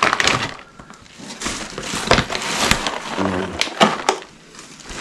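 Food packages and plastic bags being rummaged through and handled: rustling and crinkling broken by several sharp clicks and knocks, with a brief murmur of voice about three seconds in.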